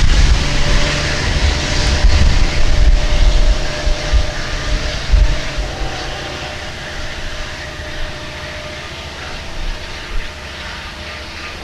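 Long Island Rail Road train hauled by DM30AC diesel locomotives with bi-level coaches rumbling past and moving away. The loud low engine and rail rumble fades steadily over the clip.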